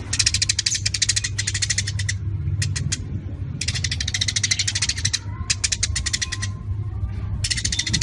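Eurasian tree sparrows chattering: bouts of rapid, dry, high chirps, broken by short pauses, over a steady low hum.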